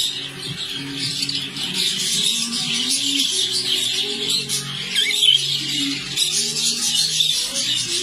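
Budgerigars chattering and twittering continuously, a dense warbling chatter of several birds. Underneath runs background music of held low notes that change step by step.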